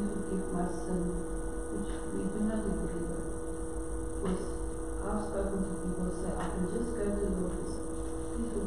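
A person's voice, faint and off-microphone: a congregation member asking a question. A steady electrical hum runs underneath.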